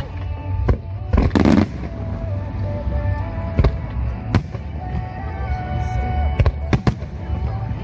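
Fireworks bursting in several sharp bangs, about six, with a denser burst about a second and a half in, over a pop song with a sung melody.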